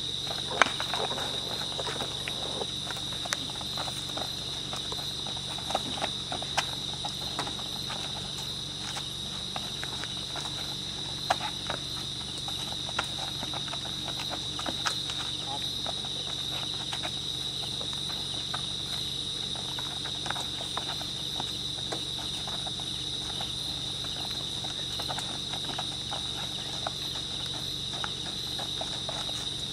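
Steady high chirring of crickets at night, with scattered footsteps and scuffs on the road surface at uneven intervals.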